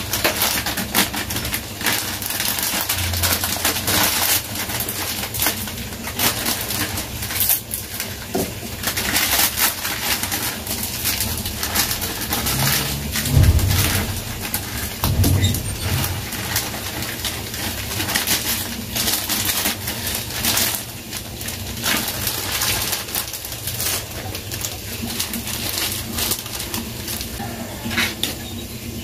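Plastic instant-ramen packet crinkling and rustling, with irregular crackles and clicks as the dry noodles are broken up and dropped into a pan on a gas stove, then stirred with a spatula.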